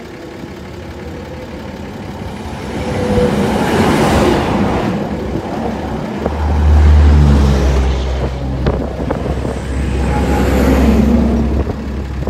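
Motor vehicles passing on a nearby road, with a low, steady engine rumble that starts suddenly about six seconds in and keeps going.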